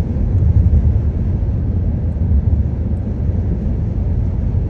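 Steady low rumble of a car driving at road speed, tyre and wind noise heard from inside the cabin.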